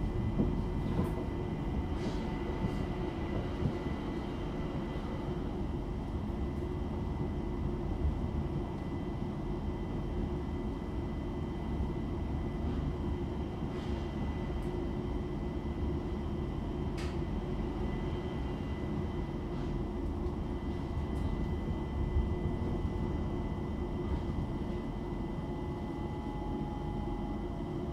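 Inside a Bombardier Class 378 electric multiple unit running between stations: a steady rumble of the wheels on the rail, with a constant high whine and a few faint clicks.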